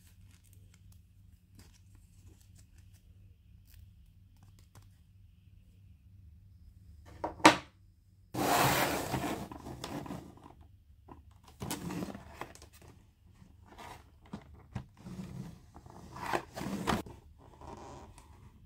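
Toy packaging being opened by hand: a sharp click about seven seconds in, then a couple of seconds of loud tearing, followed by scattered shorter rustles and crinkles of wrapping.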